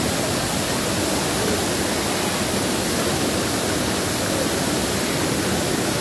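Waterfall pouring down a rock slab into a pool: a steady, unbroken noise of falling water.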